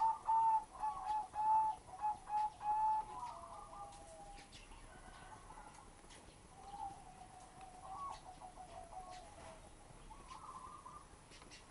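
Six-day-old ring-necked dove squab peeping: a quick run of short, high squeaky notes, about three a second, through the first three seconds, then fainter, scattered peeps.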